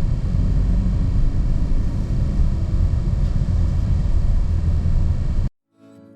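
Truck driving: a steady low engine and road rumble that cuts off abruptly about five and a half seconds in. Soft plucked-string music starts just after.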